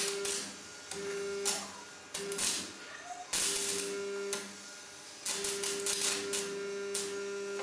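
Stick-welding arc crackling and hissing in about five bursts as the electrode is struck and broken, the longest near the end, with a steady hum under each burst. The welds are building up a new steel lead-screw nut for a bench vise.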